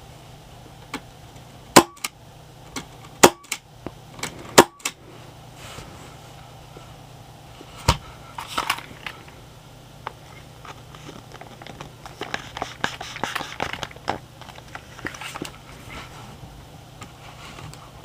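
Shots from a Marzen P99FS airsoft pistol fitted with a homemade aluminium-pipe silencer: a quick run of sharp pops in the first five seconds, three of them the loudest. Softer clicks and rattles of the gun being handled follow, with a denser patter of small clicks a few seconds before the end.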